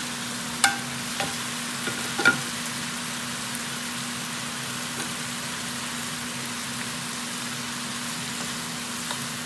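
Chayote strips and chicken sizzling in a frying pan as they are stirred with a wooden spatula, over a steady low hum. Two sharp knocks against the pan come about half a second and two seconds in.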